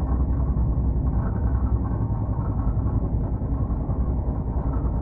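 Steady low rumble of a train running, even throughout with no distinct clicks or horn.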